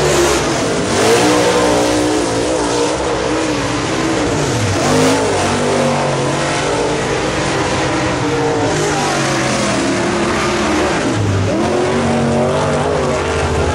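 Dirt late model race cars' V8 engines at racing speed, several at once, the engine notes repeatedly rising and falling in pitch as the cars come through the turn and accelerate away.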